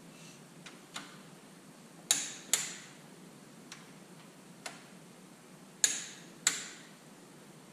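Click-type torque wrench on the cylinder head bolts of a Detroit Diesel 3-53T: each sharp metallic click, with a brief ring, is the wrench releasing as a bolt reaches its set torque. Two loud clicks come about half a second apart about two seconds in, and two more near six seconds, with fainter ticks in between.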